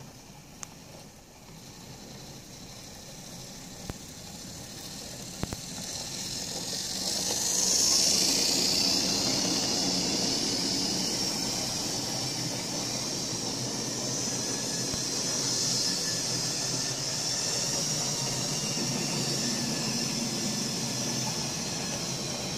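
Model Dean Goods 0-6-0 locomotive running along the track, its small electric motor whirring with a high hiss and its wheels running on the rails. It grows louder as it approaches, levelling off about eight seconds in, with a few sharp clicks in the first six seconds.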